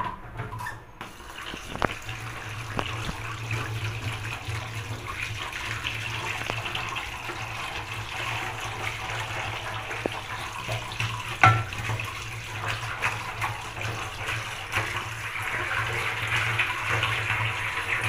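Kitchen tap running onto fresh chhena curds in a cloth-lined strainer over a steel sink, a steady splashing stream that starts about a second in, as the curds are rinsed to wash out the vinegar. A low hum lies under it, and a sharp knock comes about eleven and a half seconds in.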